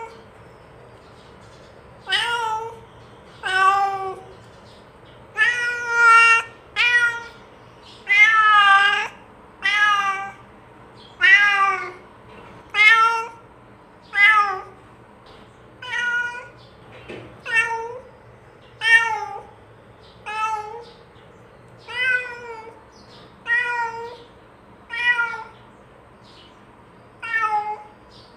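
A domestic cat meowing repeatedly, about twenty meows roughly a second and a half apart, each a drawn-out call that bends down in pitch at its end. The uploader presents it as the cat calling its companion to come and eat.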